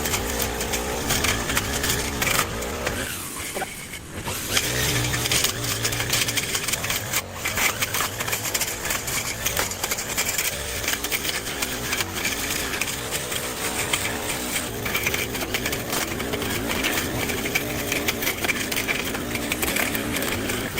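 A small motor or power tool running steadily, with frequent clicks and knocks from the work.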